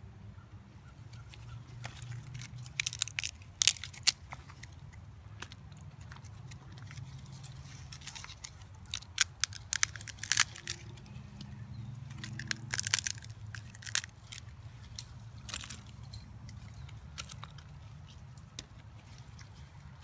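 Chunks of bark and pine pitch crunching and crackling as they are packed down by hand between upright green-wood stakes, in irregular bursts of crisp clicks, loudest a few seconds in and again around the middle.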